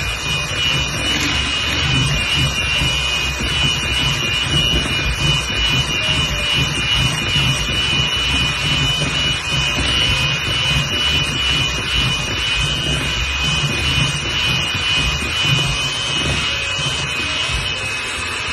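Electric mixer running steadily at speed, its two wire beaters churning egg-yolk batter in a glass bowl, with a constant high motor whine over a low pulsing hum.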